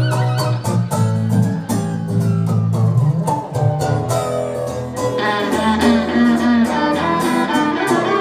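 Instrumental passage of a song: acoustic guitar strummed in a steady rhythm with a violin playing the melody; the violin line becomes busier and higher about five seconds in.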